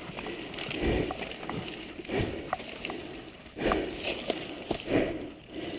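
A rider breathing hard in short gusts, four or five in a few seconds, with scuffing and rustling in wet brush around the fallen dirt bike.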